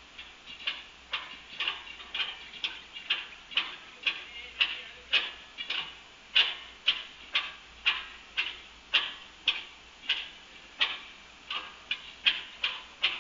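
A steady series of sharp clicks or taps, about two a second, some of them doubled.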